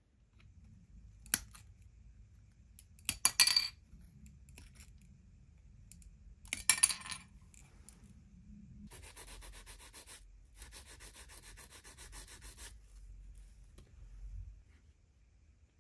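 A few sharp clicks of small parts being handled, then two spells of steady rubbing on a model part, each about two seconds long.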